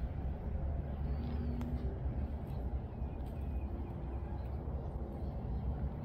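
Steady low outdoor rumble with a few faint, short bird chirps.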